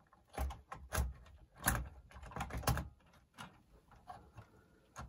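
Plastic cassette deck mechanism of a Sanyo twin-deck boombox being handled and fitted back into its chassis: a series of small irregular clicks and knocks as the plastic parts are positioned and seated, most of them in the first three seconds.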